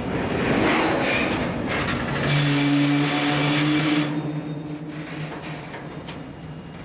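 Oil tank wagons of a freight train rolling slowly along the rails and braking to a stop. Wheel-on-rail rolling noise gives way about two seconds in to a steady low brake groan, which fades as the train halts. A single sharp click comes near the end.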